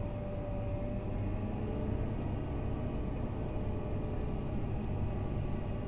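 Fendt 939 Vario tractor's diesel engine running steadily, heard from inside the cab: an even low drone with faint steady tones above it.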